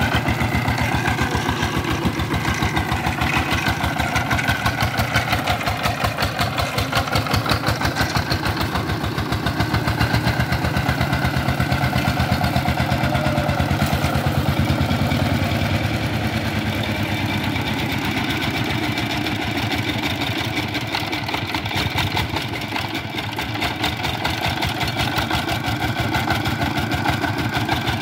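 Single-cylinder diesel engine of a two-wheel walking tractor running with a rapid, even chug, working to free the tractor and its loaded trailer from the mud. It eases slightly a little past the middle and again later on.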